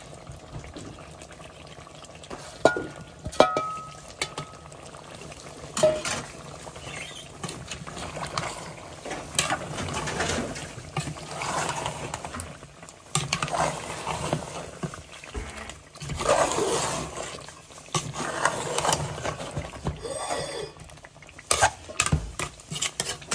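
A spoon clinking against a cooking pot a couple of times, then repeated stirring and scraping strokes through browned lamb chops in a little liquid.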